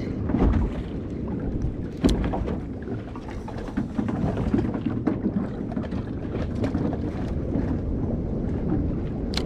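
Wind buffeting the microphone over water lapping against a small boat's hull, with a couple of knocks, one about half a second in and one about two seconds in.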